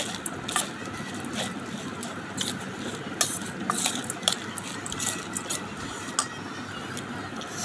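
A metal spoon stirring puffed rice mixed with ghugni in a stainless steel bowl. The spoon makes irregular scrapes and clinks against the steel.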